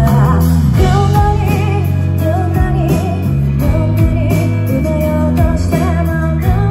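Live band music: a woman singing a melody with vibrato over acoustic guitar and a sustained bass guitar line.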